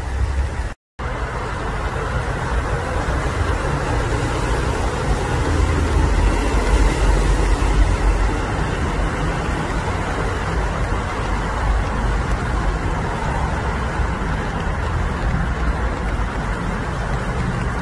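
Steady rumble of distant road traffic, with a brief drop to silence about a second in.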